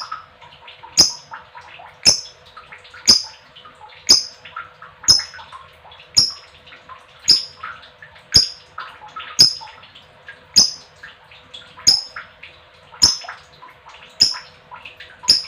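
Female lovebird calling: sharp, loud chirps about once a second, with softer chattering between them.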